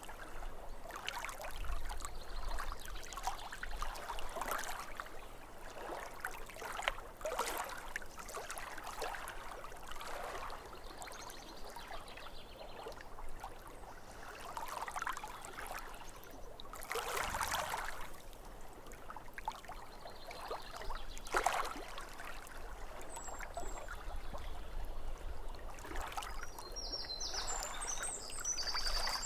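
Small waves lapping and splashing irregularly against a lakeshore. A bird sings a brief run of high chirps near the end.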